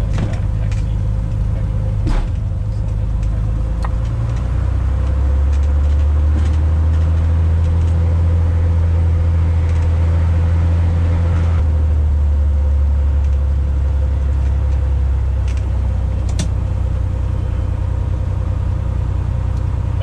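Cessna 180's six-cylinder piston engine and propeller running steadily during taxi, heard from inside the cabin. The engine note shifts and grows a little louder about five seconds in, then eases back after about twelve seconds. A few faint clicks sound over it.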